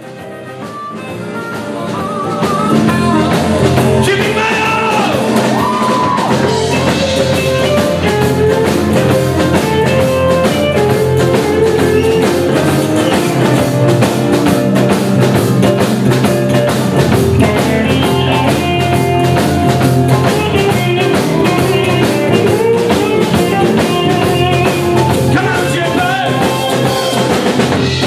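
A live blues-rock band playing: electric lead guitar, digital piano, acoustic guitar and drum kit. It fades in over the first couple of seconds, then plays on at full level with a steady drum beat.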